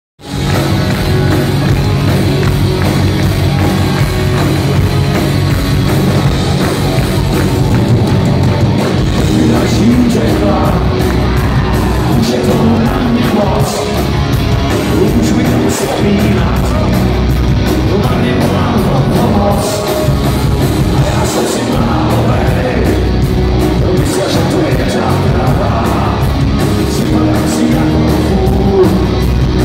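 A live rock band of electric guitars, bass guitar and drums playing loud and steady, with a man singing from about nine seconds in.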